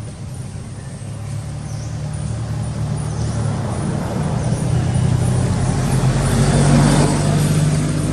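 A motor vehicle's engine running and drawing closer, growing steadily louder and loudest about seven seconds in.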